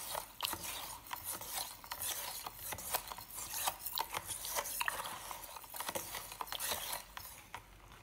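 A table knife stirring salt water in a plastic jug, scraping and clicking against the bottom and sides through undissolved salt. The stirring dies away near the end.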